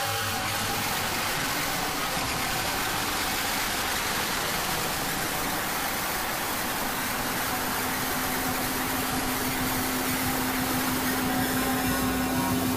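Electronic drone-ambient music: a dense, steady wash of noise filling the whole range like a running machine. A single low steady tone comes in a little past halfway and holds.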